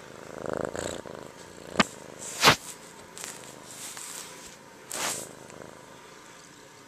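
Kitten purring right against the microphone, with sharp knocks and rustling as its head and fur rub and bump the camera. The two knocks come about two seconds in and are the loudest sounds, with another rustle near five seconds.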